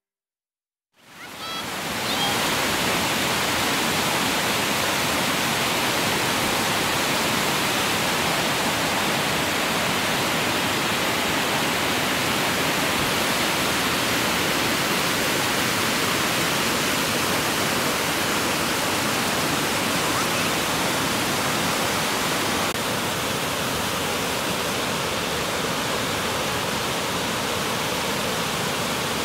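Fast mountain river rushing over rocky rapids, a steady, loud rush of whitewater that fades in about a second in.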